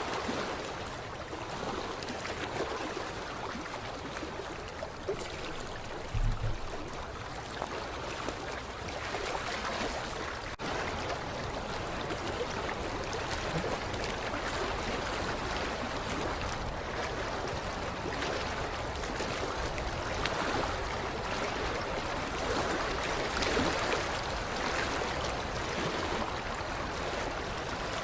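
Creek water lapping gently against the shoreline, a steady wash that swells and eases in small waves, with a brief low thump about six seconds in.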